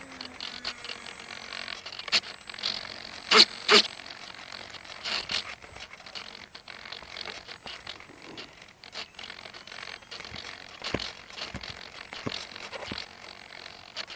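Handling noise picked up by a camera mounted on the wing of an RC model airplane: faint scrapes, rustles and light knocks as the airframe is carried and set down, with two sharp clicks about three and a half seconds in. The electric motor and propeller are stopped.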